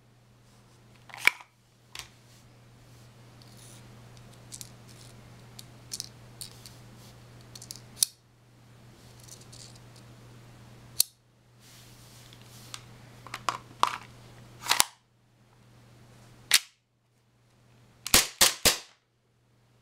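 Airsoft pistol being handled, with scattered mechanical clicks and clacks from the gun and its magazine. Near the end it fires a quick string of about four sharp shots.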